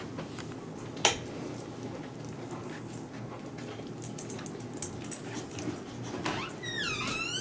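Boxer dog whining near the end, one call that falls and then rises in pitch. A sharp click about a second in.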